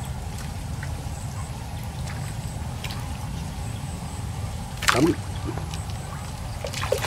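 A single water splash about five seconds in, over a steady low rumble.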